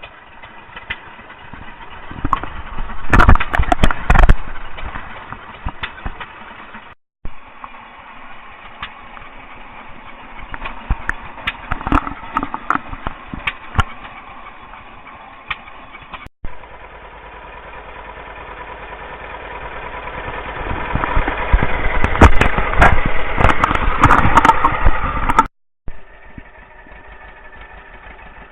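Farm machinery engines running, with louder stretches of rapid knocking and popping about three seconds in, around twelve seconds, and building up over several seconds near the end. The sound breaks off abruptly three times.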